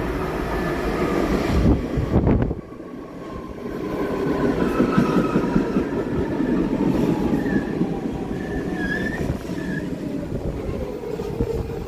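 Stainless-steel commuter train pulling in alongside a station platform and braking, its wheels rumbling with brief wheel squeals. A tone falls in pitch as the train slows and settles into a steady whine near the end.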